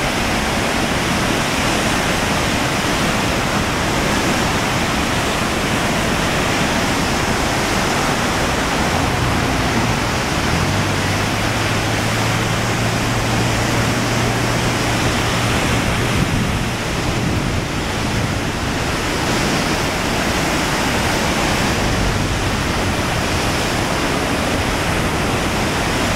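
Flooded, muddy creek swollen by Tropical Storm Lee's rains, pouring in whitewater over the remains of a dam: a loud, steady roar of rushing water. A low steady hum sounds under it for several seconds in the middle.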